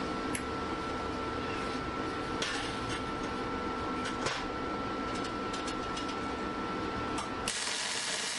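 Wire-feed welder being run again after a fix to its wire spool, which had not been turning so no wire fed through. A steady hum with scattered crackles and clicks, then a brief louder hiss near the end.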